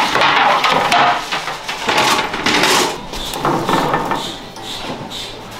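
Wooden clattering, knocking and scraping of a long bread peel worked in the mouth of a wood-fired bread oven. It is loudest for the first three seconds, then quieter with fewer knocks.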